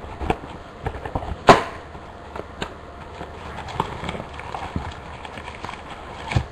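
A trading-card hobby box being handled and opened: scattered light clicks and taps of cardboard and packaging, with one sharp snap about a second and a half in.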